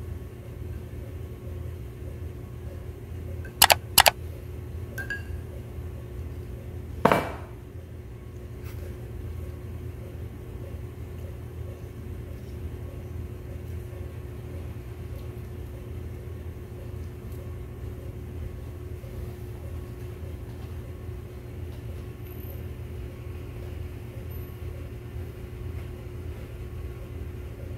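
Steady low hum of room background with a faint steady tone. Two sharp clicks come close together about three and a half seconds in, and another about seven seconds in.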